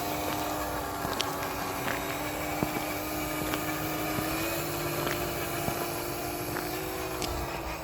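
Electric drive motor of an RC scale truck whining steadily as it drives slowly, its pitch stepping up slightly a couple of times, with scattered light clicks.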